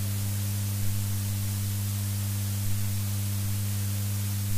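Steady electrical hum with constant hiss from the microphone and amplifier chain, a low buzzing tone with fainter overtones above it.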